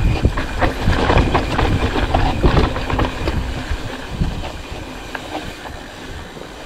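Mountain bike rattling over a bumpy dirt trail: a dense run of knocks and clatter from the bike, loudest in the first few seconds and easing off after.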